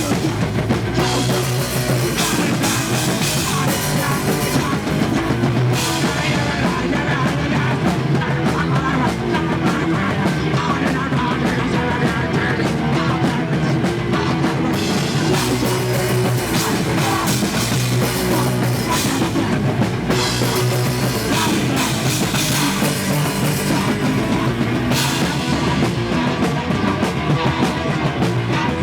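A punk band playing live and loud, with a dense, distorted wash of guitars and a drum kit that does not let up.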